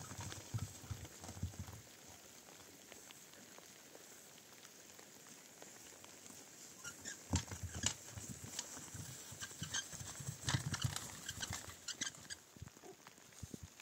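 Irregular knocks and clatters: a few thumps in the first two seconds, a quieter stretch, then a busy run of sharp knocks from about seven seconds in until near the end.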